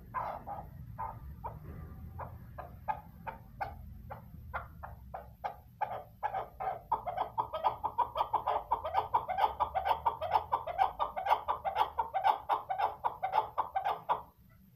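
Female chukar partridge calling: a long run of short clucking notes, spaced out at first, then from about six seconds in quicker and louder, stopping shortly before the end.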